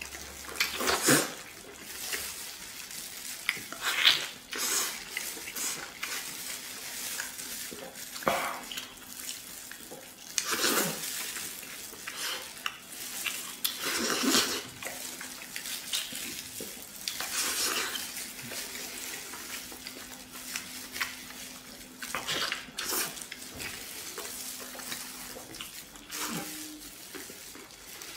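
Close-up wet eating sounds of a person biting, sucking and chewing soft braised pork knuckle skin and meat, in irregular bursts of smacking and slurping.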